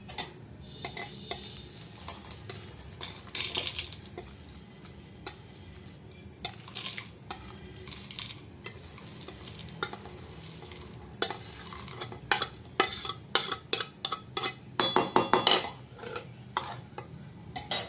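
A spoon scraping and clinking in a kadai as cooled roasted spices are scooped out for grinding, in irregular clatters with a busier run of clinks near the end. Crickets chirp steadily in the background.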